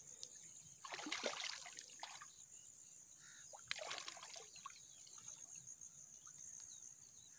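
Faint, irregular splashing and dripping of water as a hooked fish is handled and lifted in the shallows, with a steady high hiss in the background.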